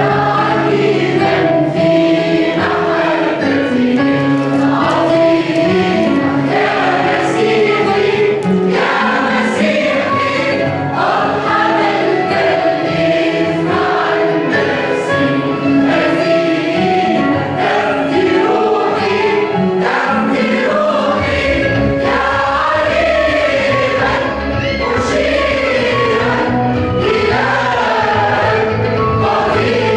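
Mixed choir of women's and men's voices singing a hymn in Arabic. A deep bass comes in about two-thirds of the way through.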